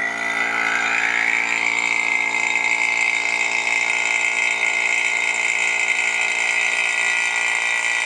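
Refrigeration vacuum pump running steadily, evacuating a portable air conditioner through the manifold gauges. Its whine rises slightly in pitch over the first second or two and then holds steady: the small pitch change as the low-side valve is opened and the pump starts drawing down the system.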